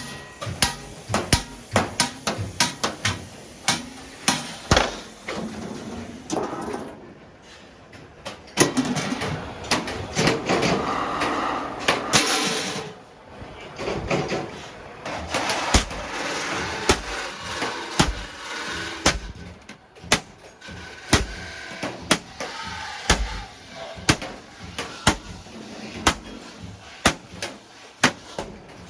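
Hammer blows on an iron griddle plate, struck in irregular runs of sharp metallic strikes, with a brief hiss about twelve seconds in.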